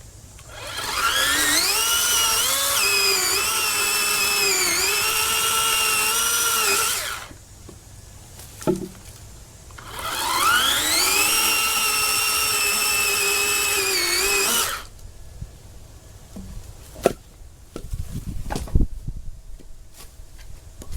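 Greenworks 40V brushless cordless chainsaw's electric motor and chain running twice, about six and five seconds each. Each run whines up in pitch as it spins up, holds nearly steady with small dips, then stops. A few knocks and some low rumbling follow near the end.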